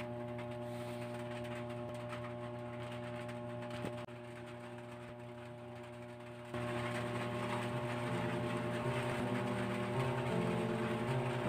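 A steady low electrical hum with a faint hiss. About six and a half seconds in, a louder hiss comes in suddenly, and soft piano notes begin a little later.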